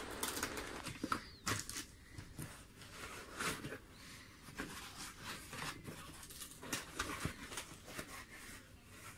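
Foam packing sheets and cardboard rustling and crackling as they are handled and pulled back: a string of short, irregular, fairly quiet crackles.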